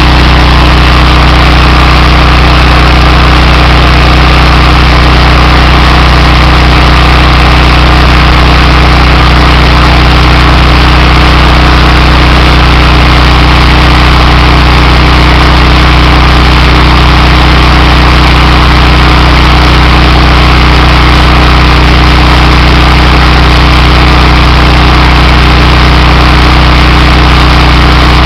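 Honda GX390 single-cylinder four-stroke engine on a pressure washer running steadily and loud, with no change in speed.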